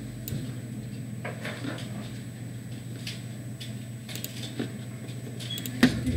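Steady low electrical hum of room tone, with a few faint scattered clicks and one sharper click near the end.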